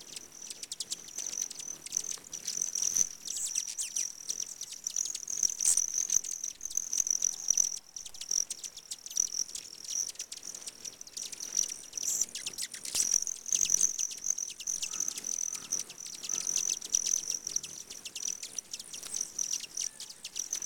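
A crowd of hummingbirds at a feeder: rapid sharp chips and twitters over a constant, high, pulsing trill.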